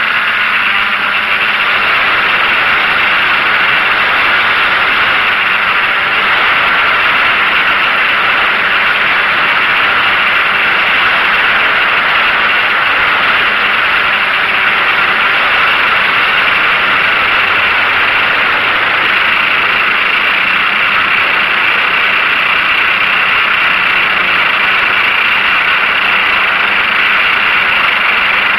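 DJI F550 hexacopter's electric motors and propellers running steadily in flight, heard from a camera mounted on the craft as a loud, even buzzing hiss that does not change.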